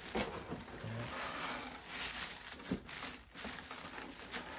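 Plastic wrapping crinkling and a cardboard carton rustling and scraping as hands tug at a tightly packed boxed radio cassette recorder that is stuck fast, with a sharp knock about two and a half seconds in.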